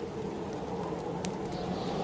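Steady low rushing of snowstorm wind with a wood fire crackling: one sharp pop a little over a second in and a few fainter ticks after it.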